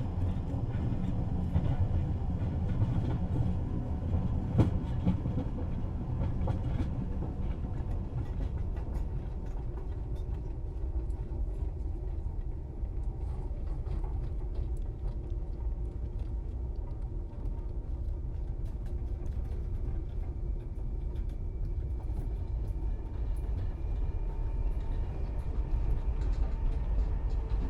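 Inside a commuter train carriage on the move: a steady low rumble with scattered clicks and rattles, a little louder in the first few seconds.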